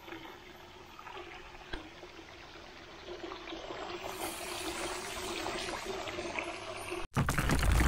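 Water splashing and bubbling in a shad tank from the jets of its PVC spray-bar aerator, over a steady low hum, growing louder about three seconds in. Near the end it cuts off abruptly into a loud crash of shattering and a boom.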